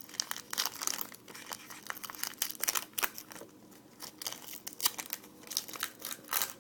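Wrapper on a pack of trading cards being torn open and crinkled by hand: a run of irregular crackles.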